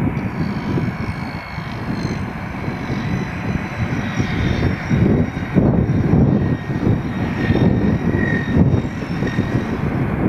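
Airbus A319-112's CFM56 turbofan engines at low taxi power: a steady jet rush with several high whining tones that drift slightly in pitch as the airliner rolls.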